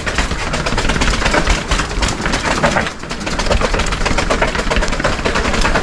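Mountain bike clattering down a tiled concrete stairway: a dense, continuous rattle of knocks from the tyres, chain and frame over the step edges, easing briefly about three seconds in.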